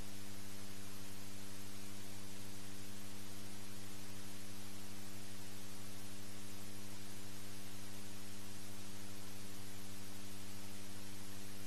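Steady electrical mains hum with hiss on an audio feed: a stack of even, unchanging tones under a constant hiss, with nothing else.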